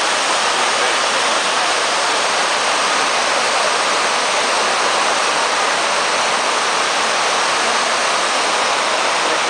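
Water falling down the walls of the 9/11 Memorial's South Pool waterfall fountain into the pool below, a loud, steady rush with no breaks.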